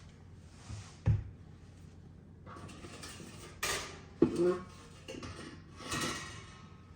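Sheet-metal parts of a range being handled and fitted: a dull thump about a second in, then a few clattering metal knocks and scrapes.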